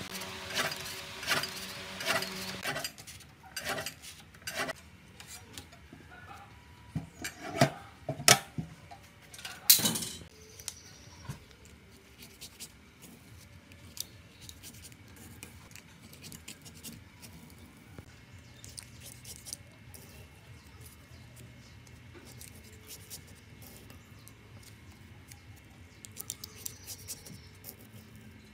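Lever-arm paper guillotine cutting strips of paper with several sharp blade clacks, the loudest three between about eight and ten seconds in. After that come soft papery clicks and scrapes as insulating paper strips are pushed into the slots of a small electric fan motor's stator.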